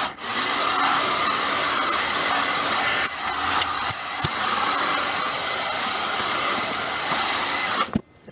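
Black & Decker heat gun running steadily, blowing hot air over a freshly washed circuit board to dry it; it stops suddenly near the end.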